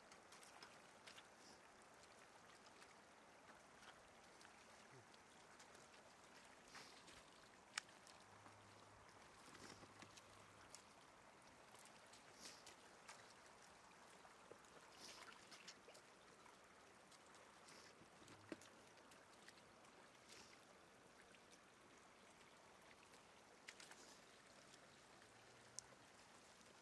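Faint splashing and trickling of shallow floodwater as fish are grabbed by hand and dropped into a wicker basket, with a few short sharp splashes or knocks scattered through.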